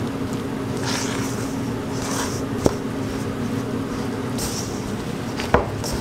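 A metal spoon stirring and scraping crumbly flour-and-egg dough in a stainless steel bowl: several soft scrapes and two sharp clinks of metal on the bowl. A steady hum runs underneath.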